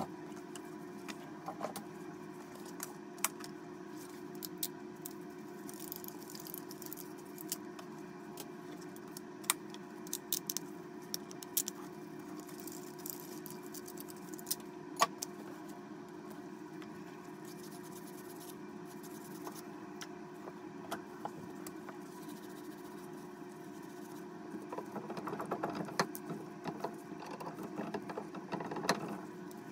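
Scattered small clicks and metal clinks of tools and parts being handled over a steady hum, growing busier near the end as a gloved hand works at the brass shower valve inside the wall opening.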